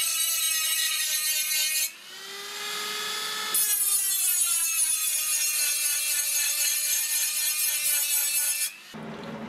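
Flexible-shaft rotary tool with a small abrasive disc grinding the edge of a galvanized sheet-steel repair panel, taking the zinc coating off for welding: a high, steady whine. About two seconds in, the grinding drops away and the whine sags in pitch. It comes back at full strength a second and a half later and stops shortly before the end.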